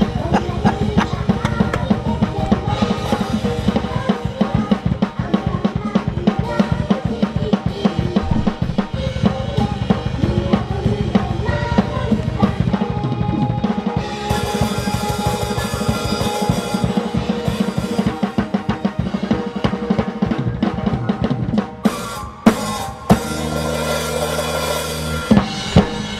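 Metal drumming on an acoustic drum kit: very fast blast beats of bass drum and snare, with music under them. About 22 seconds in the fast beat stops, followed by a few loud separate hits and a steadier held sound near the end.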